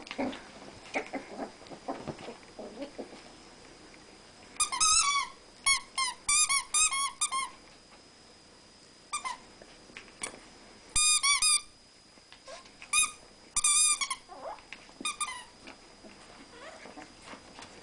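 Squeaky dog toy squeezed by rat terriers in play, going off in quick runs of several high-pitched squeaks at a time. The squeaking starts about four and a half seconds in and comes back again and again, after a few seconds of softer scuffling.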